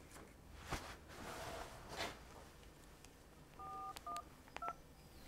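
A mobile phone's keypad beeping as a number is dialled: three short two-note beeps close together from about three and a half seconds in, the first the longest. Before them, a sharp click and some rustling.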